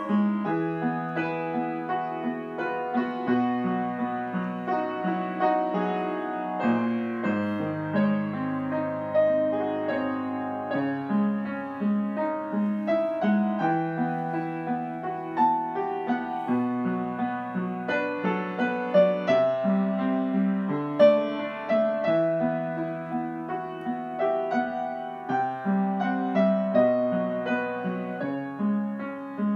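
Upright piano playing a slow, flowing piece with a repeating bass figure under a melody.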